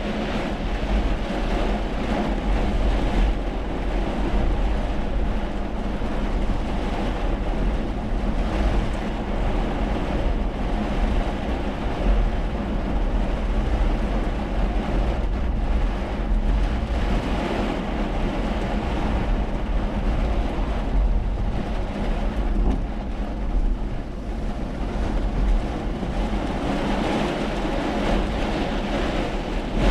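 Steady noise of a car driving on wet roads in heavy rain: a constant hiss of tyres and rain over a low engine and road rumble.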